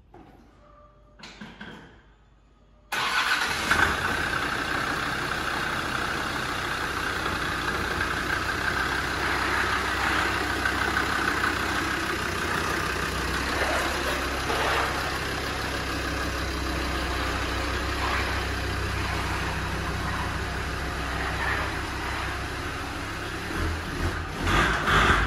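Land Rover Defender 90's Td5 diesel engine starting up about three seconds in, then running steadily at idle as it is driven slowly out of the workshop.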